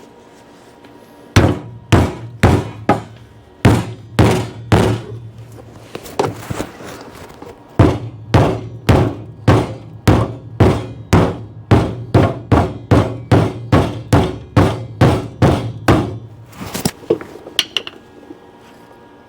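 Hammer striking the car's steel body again and again, about two blows a second with a short pause early on, each blow ringing briefly. It stops a few seconds before the end.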